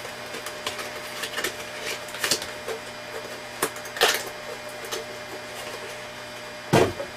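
Cardboard product box being opened and handled by hand: scattered crinkles, taps and rustles of cardboard and packing, with a louder bump near the end.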